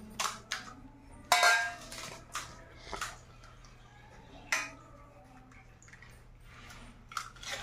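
Spoons and hands clinking and tapping on stainless-steel plates and bowls as puris are cracked open, filled and dipped, in scattered light knocks with two sharper, briefly ringing clinks, about a second in and near the middle.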